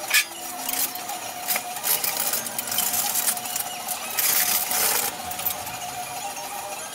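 Metal clanks and knocks from a motorcycle being shifted about on a scissor-type motorcycle lift, with a longer scraping rattle about four seconds in.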